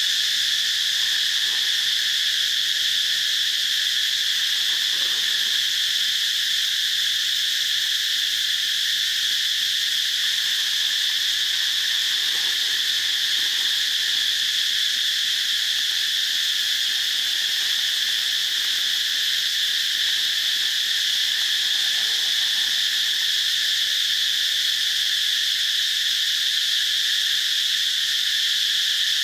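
A dense chorus of insects giving a loud, steady, high-pitched drone that does not change. A few faint lower sounds come and go underneath it.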